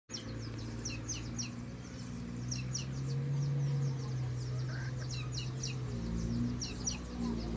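Heavy earthmoving equipment's engine running, its note shifting a few times, while small birds chirp over it in quick repeated calls.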